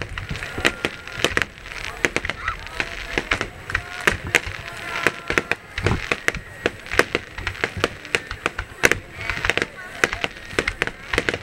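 Aerial fireworks shells bursting in quick succession, a dense run of sharp bangs and crackles, with a crowd of spectators talking and calling out underneath.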